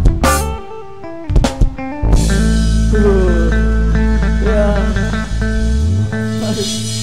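Live rock band playing the song's ending: the steady drum beat stops on a cymbal crash, two more accents follow, then the band holds a long final chord with bass underneath while an electric guitar plays bending lead notes over it.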